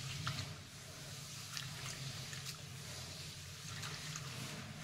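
Hands rubbing soaked black gram (urad dal) in a bowl of water to loosen its husks: faint wet swishing with a few small splashes or ticks, over a faint steady low hum.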